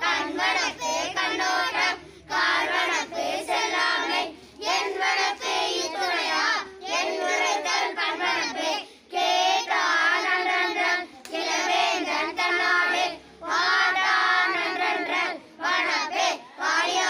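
Boys singing a Tamil verse together, unaccompanied, phrase by phrase with short pauses between the lines.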